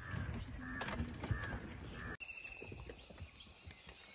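Crows cawing repeatedly over low rustling, then about two seconds in the sound cuts abruptly to a steady high-pitched insect chorus.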